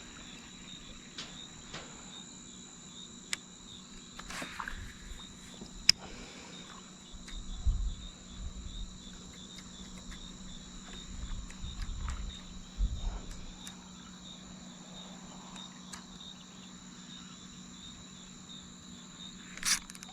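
Insects chirring in a steady, high, evenly pulsing drone, with a few sharp clicks and some low rumbles of handling noise.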